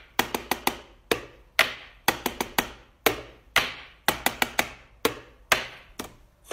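Sharp knocks tapped out by hand in a repeating beat: quick runs of about four taps alternating with single, louder strikes, each with a short ringing tail.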